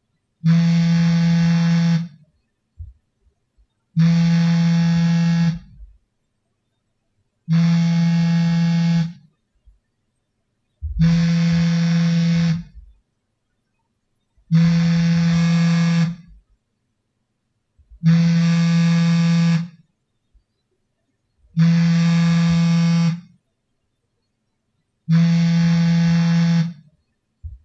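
Samsung smartphone vibrating for an incoming call: eight steady low buzzes about a second and a half long, one every three and a half seconds, with silence between them.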